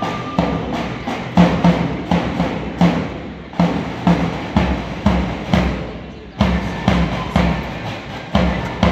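Marching band drums beating a steady march rhythm, the deep drum strokes loudest, with two short lulls, one about three and a half seconds in and one about six seconds in.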